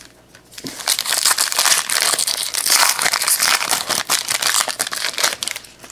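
Foil wrapper of a 2017-18 Panini Donruss Optic basketball card pack crinkling and tearing as it is pulled open by hand. The crackling starts about a second in and stops just before the end.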